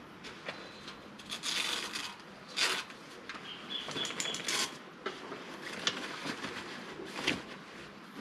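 Rustling and scraping as the cantilever umbrella's fabric canopy and metal frame are handled, in several separate bursts. A bird chirps in a short quick run about four seconds in.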